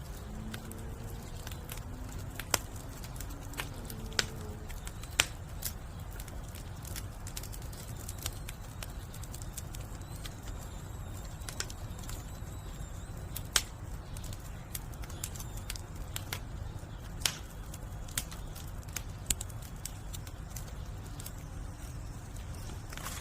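Burning firewood crackling, with irregular sharp pops and snaps over a steady low rumble.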